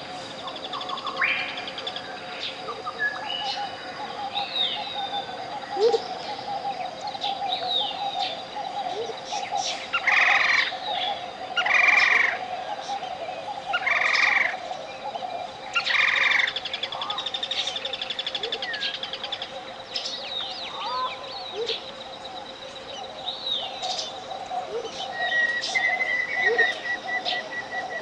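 Tropical jungle ambience of birds chirping and calling, one call repeated four times about two seconds apart midway and a short trill near the end, over a steady low pure tone at 528 Hz.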